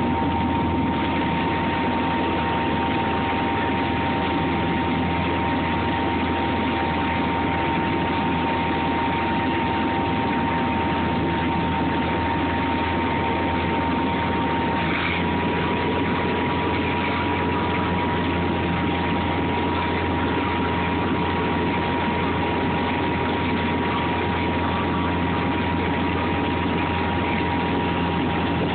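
Motorboat engine running steadily at towing speed, mixed with the rush of water and wind, and a steady high whine running through it.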